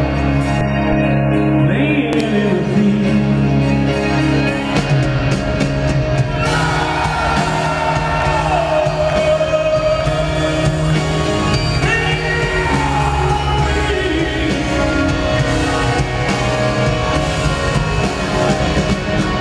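Live rock band playing, with electric guitar and drums under a male lead singer holding long, bending notes; the singing comes in strongly about a third of the way through.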